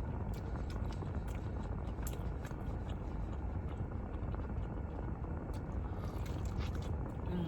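A person chewing food close to the microphone, with small wet mouth clicks scattered throughout.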